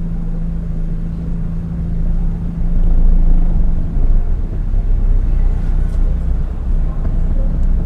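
A car's engine and road noise heard from inside the cabin while driving: a steady low rumble with a hum that drops out about halfway through.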